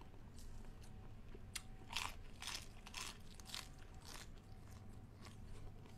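Close-up eating sounds: crisp crunching and chewing of a lettuce-wrapped bite of blanched tiger prawn salad, a crunch about every half second from about a second and a half in, easing off after about four seconds.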